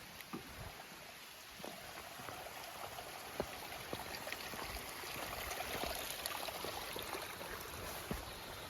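Running water of a small creek, growing louder toward the middle, with a few scattered light clicks.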